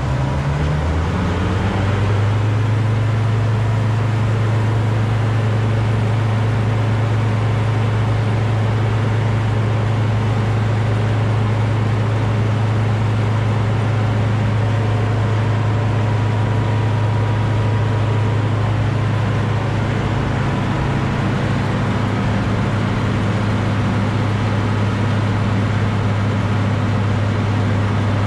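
Bizon Rekord Z058 combine harvester's six-cylinder diesel engine revving up over the first couple of seconds, then running steadily as the combine drives slowly forward.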